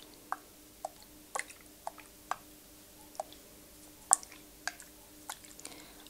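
Short, wet mouth clicks and lip smacks very close to the microphone, about nine of them at irregular intervals, over a faint steady hum.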